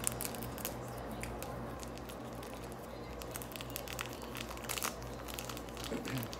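Small plastic packet of red pickled ginger crinkling and crackling in the fingers as the ginger is pinched out, with a few louder crinkles about five seconds in.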